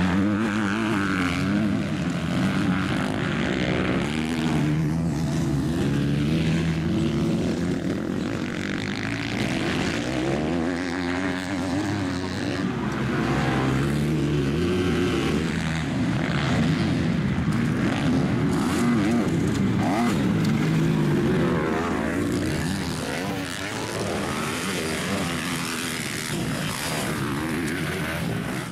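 Motocross dirt bike engines revving hard on a race track, the pitch rising and falling again and again as riders open and close the throttle through corners and jumps.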